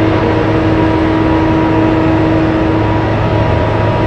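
BelAZ-75710 diesel-electric mining dump truck driving with a full load of rock, its twin diesel engines running steadily under load. A steady whine sits over the engine noise, part of it fading about three seconds in.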